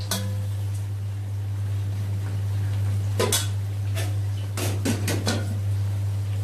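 Pork pieces deep-frying in a wok, the oil sizzling with an even hiss over a steady low hum. Metal clinks from a stainless bowl and utensils about three seconds in and a quick run of them around five seconds.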